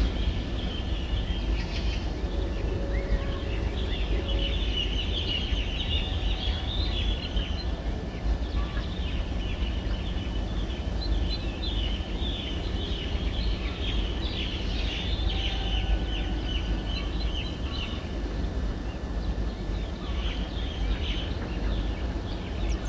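Small birds chirping and twittering in many quick short calls, thickest through the middle, over a steady low rumble of wind on the microphone.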